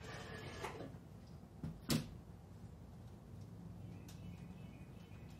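Faint tool and handling noise from undoing a utility vehicle's battery terminals, with one sharp metallic click about two seconds in.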